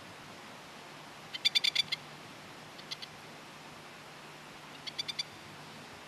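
Masked lapwing (spur-winged plover) giving harsh rattling calls: a quick burst of about six notes about a second and a half in, two notes a little later, and another quick burst of about five notes near the end.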